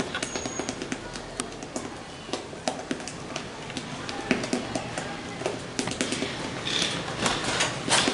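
Silicone spatula scraping and tapping against a glass mixing bowl while folding red food colouring into whipped cream: irregular clicks and scrapes, louder and more frequent near the end.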